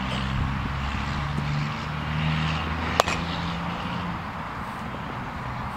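A baseball bat hitting a ball once, a single sharp crack about three seconds in. Under it runs a steady low engine drone.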